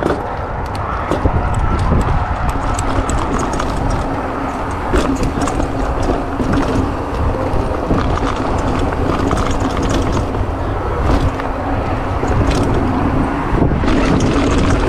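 Mountain bike rolling down a rocky dirt trail: tyres crunching over loose stones, with frequent rattles and clicks from the bike over the rough ground and a steady wind rumble on the microphone.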